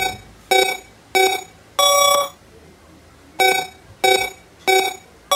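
Electronic beeps in a countdown-style pattern: three short beeps about half a second apart, then a longer beep at a different pitch. After a pause of about a second the pattern starts again.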